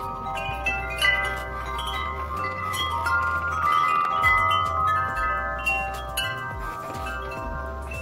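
Tuned metal tube wind chime set swinging, its tubes struck again and again and ringing in overlapping, sustained musical notes.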